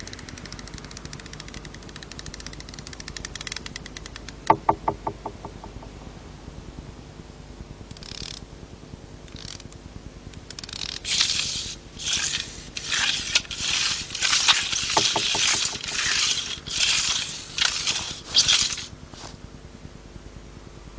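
A run of rough scrapes, one after another and each under a second long, taking up the second half, after faint rapid clicking and a single sharp click with a brief ring.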